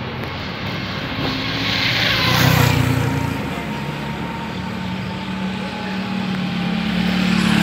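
Street traffic: vehicles driving past on the road, the noise swelling as one passes about two and a half seconds in and again near the end, over a steady engine running underneath.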